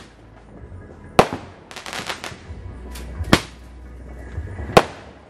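Roman candle firing: three loud sharp shots a second and a half to two seconds apart as each star is launched, with a quick run of smaller pops after the first.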